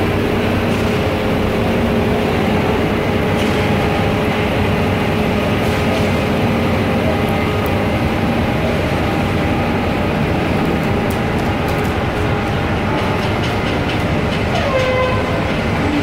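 Concrete mixer truck running at close range: a loud, steady diesel rumble with several droning tones. About three-quarters of the way through, a whine falls in pitch.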